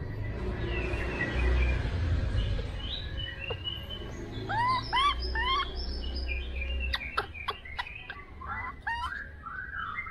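Baby monkey giving short, high, arched coo calls, three in quick succession about halfway through, then wavering squeaky calls near the end. A rustle of cloth on cardboard comes at the start, and a few sharp taps fall in between.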